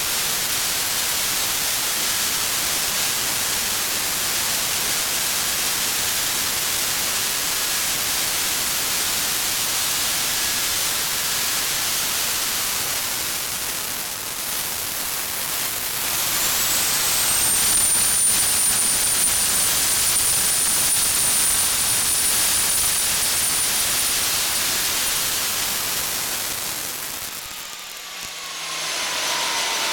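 Homemade turbocharger-based jet engine running loud, a jet roar with a high turbine whine. About 16 seconds in the whine rises in pitch and the roar gets louder; near the end both drop away briefly before coming back up.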